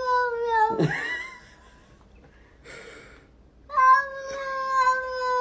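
A domestic cat giving long, drawn-out warning yowls that slowly sink in pitch: an agitated, bristling cat. One yowl breaks off about a second in, and another starts after a pause of a couple of seconds.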